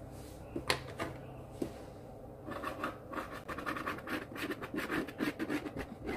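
A pen scratching across corrugated cardboard as an outline is drawn: a few light knocks in the first couple of seconds, then quick, rapid short strokes from about halfway in.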